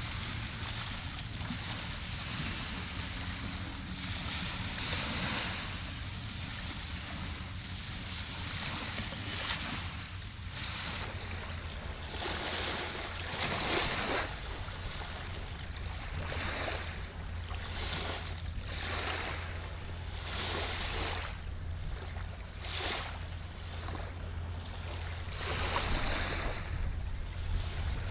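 River water washing and lapping in irregular surges every second or two, over a steady low hum and some wind on the microphone.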